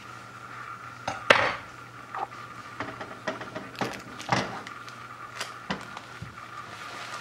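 A metal knife and a metal baking tray clinking and clanking as a baked sponge cake is loosened from the tray and lifted out. There are a dozen or so scattered clanks, the loudest about a second in, over a steady low hum.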